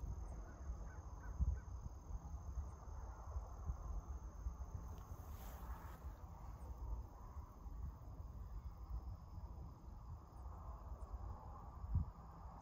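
Quiet open-field ambience: low wind rumble on the microphone under a steady high insect drone. One short low thump near the end.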